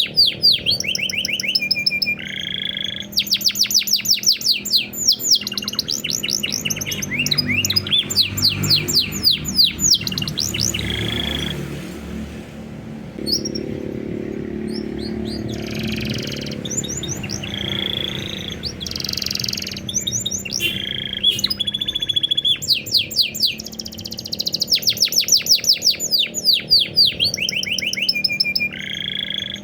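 Domestic canary singing a long, varied song: fast trills of rapid repeated falling notes, broken by short held whistled notes. The song turns softer and sparser for several seconds in the middle before the fast trills return.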